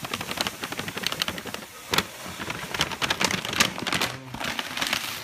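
Crushed malt pouring from a paper sack into a plastic cooler mash tun: a dense crackle of grain kernels showering in, with the paper sack rustling. One sharp knock about two seconds in.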